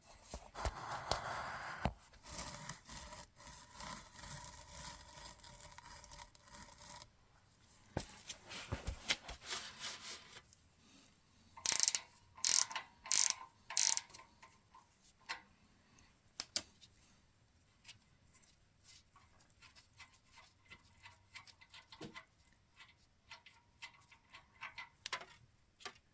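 A 7/16 wrench working the oil drain plug loose on a small generator engine: metal scraping and rubbing, four short, sharp rasping strokes about halfway through, then scattered faint clicks.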